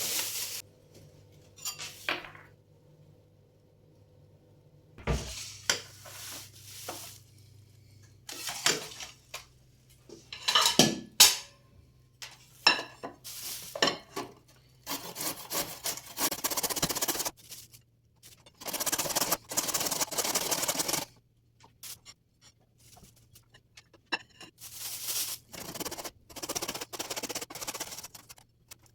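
Kitchen work: dishes, pots and cutlery clinking and scraping in scattered bursts, with two longer spells of steady noise in the middle.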